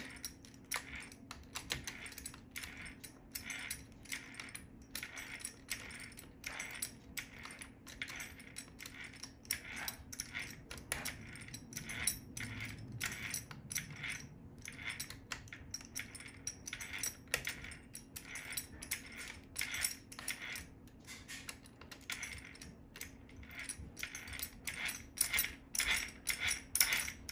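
Light metallic clicking, about one or two clicks a second, as a hex driver turns and snugs the steel bolts of an RC car's brake mount. A faint steady hum lies beneath.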